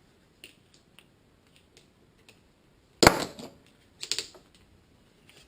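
Clicks and clacks from working a hand wire-stripping tool along heavy six-strand wire: light ticks at first, then a sharp loud clack about three seconds in and another cluster about a second later.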